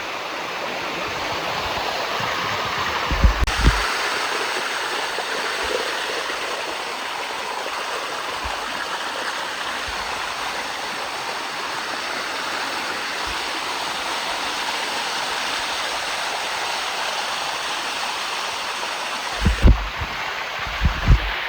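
Waterfall: a steady rush of water running down the falls, with a few short low bumps near the end.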